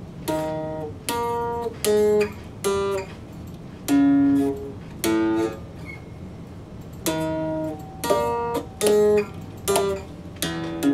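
Stratocaster-style electric guitar, a RockJam, picked in a riff of short, separate notes and two-note chords: about ten plucked stabs, each cut off after under a second, with brief gaps between.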